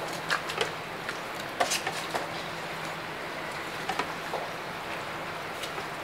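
A spoon stirring chunks of raw meat in a black cooking pot: irregular soft clicks and scrapes of the spoon against the pot, over a steady low hum.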